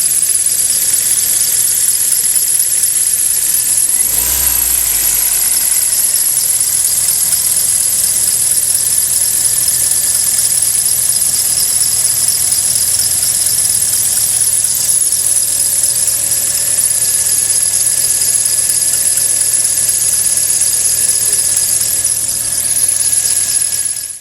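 Kia Rio engine running with a steady high-pitched whistling squeal from the accessory drive belt, the cold-engine belt squeal that goes with this car. A brief low thump comes about four seconds in.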